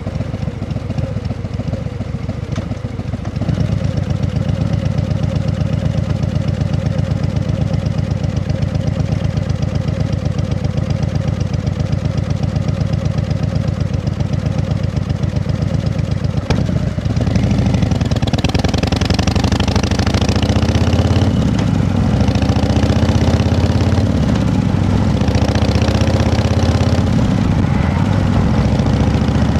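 An engine running steadily, getting louder a few seconds in. In the second half its pitch rises and falls.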